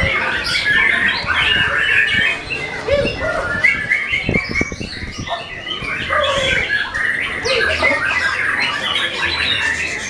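Several caged white-rumped shamas (murai batu) singing at once: a dense, overlapping chorus of quick whistled phrases and chattering calls that never lets up.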